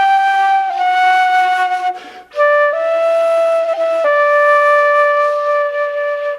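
Irish traditional music: a flute playing long held notes in a slow air, with a short break about two seconds in.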